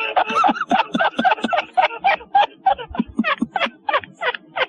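Laughter: a rapid string of short bursts, about four a second, each dipping in pitch.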